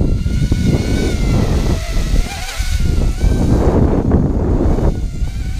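Walkera Rodeo 110 quadcopter's four brushless motors whining in flight, the pitch wavering up and down as the throttle changes. Heavy wind buffeting on the microphone rumbles underneath.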